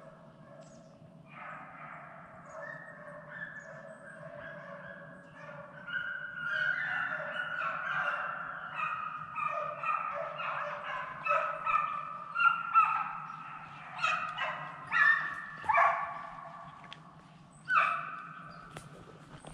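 A pack of deer hounds baying in chorus on a deer chase, many voices overlapping, growing louder about six seconds in.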